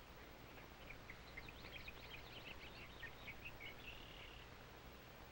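Faint twittering of small birds: a quick run of short, high chirps that ends in a brief held note, over a steady hiss and low hum.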